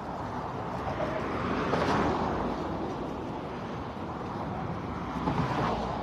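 Car on the road: steady road and wind noise, swelling twice, about two seconds in and again near the end.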